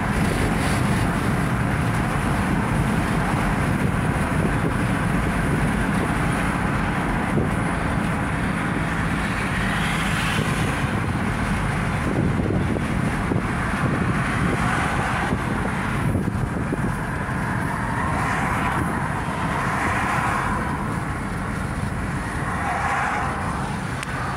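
Road and wind noise inside a moving vehicle at road speed: a steady low rumble with a hiss that swells and eases every few seconds.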